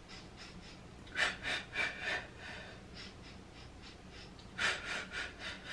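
A woman breathing in short, sharp puffs in two runs of several quick breaths each, one a little after a second in and one near the end. This is the patterned breathing of the Pilates hundreds, several counted breaths in and then several out while the arms pump.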